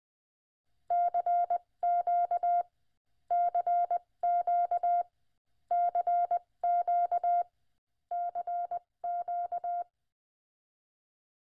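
Morse code sent as a steady beep tone of one pitch, keyed in quick runs of short and long beeps, in four pairs of groups with the last pair quieter.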